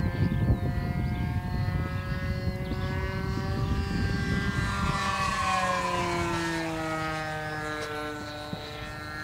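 Two-stroke glow engine (OS Max 46 AX) of a CAP 232 RC aerobatic model running at steady high revs in flight. Its pitch drops about halfway through as the plane flies past.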